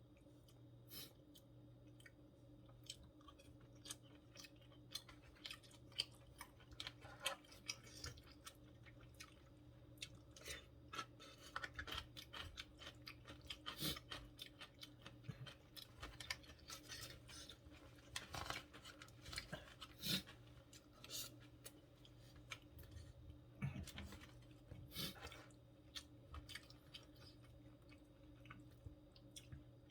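Close-miked chewing of food, with many small wet clicks and smacks coming irregularly throughout, over a faint steady hum.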